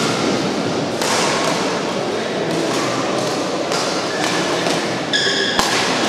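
A badminton rally: rackets hit a shuttlecock several times in quick exchange, with a smash at the start, over a steady background hum from the hall. A short high squeak, like a shoe on the court, comes a little after five seconds, followed by one last sharp strike.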